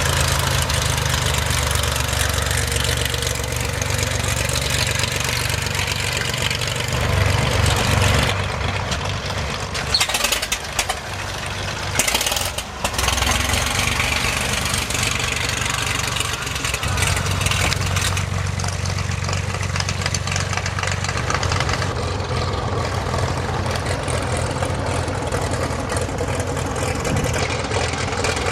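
Loud, steady engine drone with a constant rushing noise, as heard while riding in a motor vehicle, with a few brief knocks partway through.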